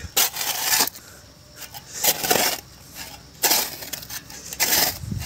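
Small metal carburettor parts clinking and scraping against each other and a plastic bowl of cleaning thinner as they are handled, in about four short bursts.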